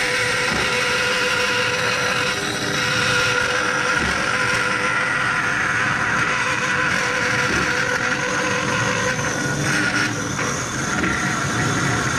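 1971 DoAll 1612-0 vertical metal-cutting bandsaw running, its old blade cutting through square metal tubing. The machine gives a steady hum, with a steady hiss of blade on metal over it.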